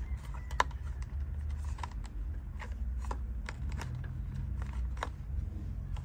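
Fingers pushing a motor run capacitor and its wires down into a plastic electrical box: scattered light clicks and taps of plastic and wire, over a steady low hum.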